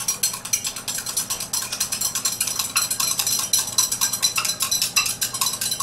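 Vigorous stirring in beakers of water, the stirrers clinking against the beaker sides in a fast, steady run of clicks, several a second.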